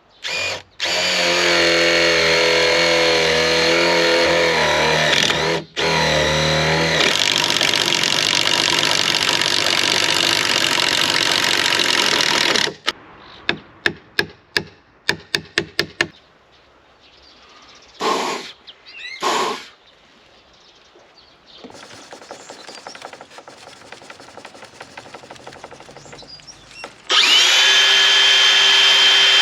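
Power drill running under load in long stretches, its pitch wavering as it works into wood. Midway there is a quick run of sharp clicks and a couple of short bursts, then a quieter rubbing noise, before the drill starts again near the end.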